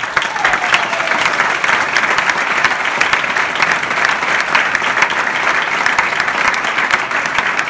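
Large theatre audience applauding, a dense, loud clatter of many hands clapping that breaks out suddenly and holds steady, heard from among the seats.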